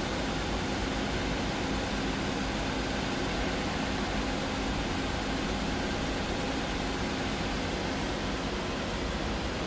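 Okuma Crown 762S-SB CNC lathe running: a steady, even whir with a faint hum.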